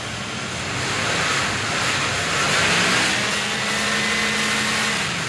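Car engine running as a faint steady drone under a steady wash of noise.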